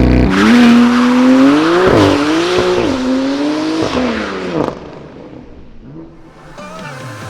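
BMW S55 twin-turbo inline-six running through a titanium equal-length exhaust, revving so its pitch rises and falls several times. After about two-thirds of the way through, the engine sound drops to a quieter level.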